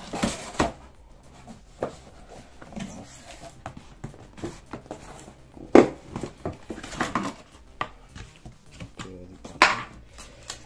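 Cardboard printer box being handled, its flaps and packing inserts moved by hand, giving scattered rustles and light knocks. Two sharper knocks stand out, one a little past halfway and one near the end.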